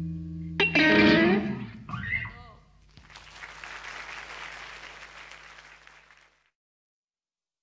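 A held electric-guitar chord from a live band ends, a voice calls out briefly into the microphone, then the audience applauds for about three seconds before the sound cuts off suddenly into silence.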